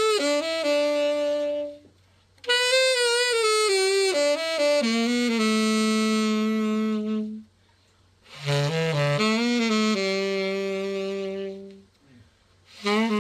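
Conn 16M tenor saxophone played solo in a play test after a full overhaul: slow melodic phrases, each settling on a long held note, separated by short pauses for breath.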